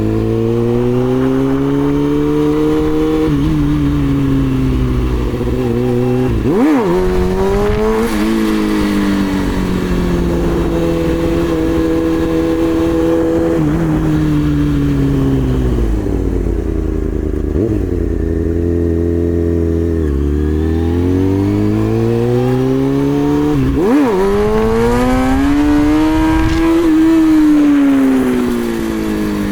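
2003 Kawasaki ZX-6R 636 inline-four engine revving up and falling back in long sweeps, held in first gear because second gear is out with a transmission/shift fork fault. There are two sharp quick dips and rises in pitch, about 7 seconds in and again about 24 seconds in.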